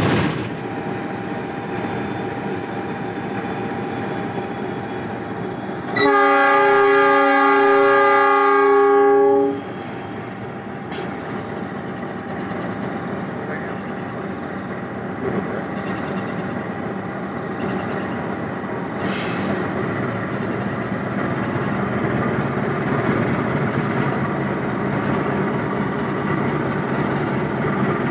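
Diesel locomotive hauling a freight train past at close range, its engine running steadily. About six seconds in, its multi-tone air horn sounds one long blast of roughly three and a half seconds.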